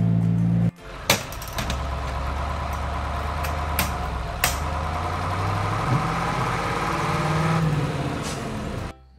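Tractor engine running steadily at idle, with a few sharp plastic clicks as a toy tipping trailer's bed is lowered. The background music cuts off just before the engine starts.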